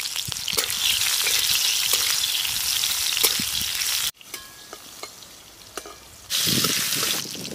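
Tomato pieces, green chillies and black cumin seeds sizzling in hot mustard oil in a karahi, with a few sharp clicks and scrapes of a metal spatula stirring them. The sizzling drops away suddenly about four seconds in and comes back loud about two seconds later.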